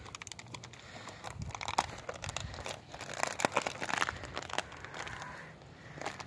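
Footsteps crunching through dry grass and fallen leaves, an irregular run of crackles that grows louder in the middle.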